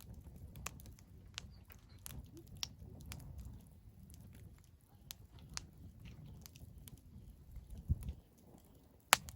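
Wood fire crackling in a fire pit: irregular sharp pops and snaps over a low rumble, with a dull thump about eight seconds in and the loudest, sharpest pop just after nine seconds.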